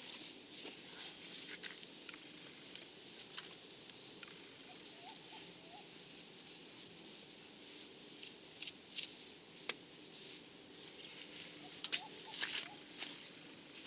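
Faint, scattered scraping and clicking of a hand tool working wet cement render on the coop wall, rounding off sharp corners, with a few short soft chirps.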